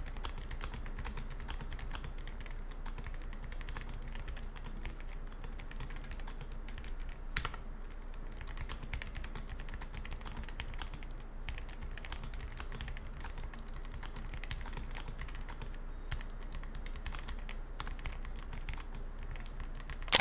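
Continuous fast typing on a Rakk Pirah Plus wireless mechanical keyboard with pre-lubed Ultimo red linear switches and foam-dampened polycarbonate plate: a steady stream of key clacks. The factory-lubed stabilizers still have a bit of rattle.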